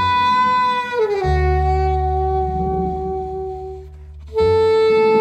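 Jazz ensemble's horn section of saxophones, trumpet and trombone over double bass playing long held chords. A loud entry drops to a lower chord with a deep bass note about a second in, there is a brief break near four seconds, then another loud held chord comes in.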